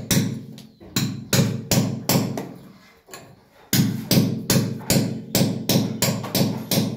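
Hand hammer striking a steel chisel into a plastered wall, a run of sharp knocks about three a second with a pause of about a second and a half partway through. The wall is being chased to take the mixer's pipe line.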